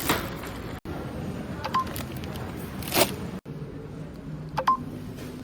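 Two short electronic beeps about three seconds apart, amid rustling and a couple of sharp knocks.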